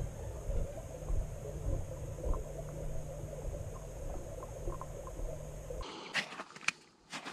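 Muffled low rumble and hiss of water heard through an underwater camera under the ice, with a few faint ticks. About six seconds in it gives way to a few sharp clicks and rustles as a spinning rod and reel are handled above the ice.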